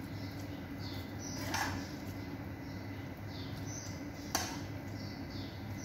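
A metal spoon scraping and spreading a chicken-spinach mixture in a glass bowl, tapping once about a second and a half in and clicking sharply against the bowl or pan about four seconds in, over a steady low hum.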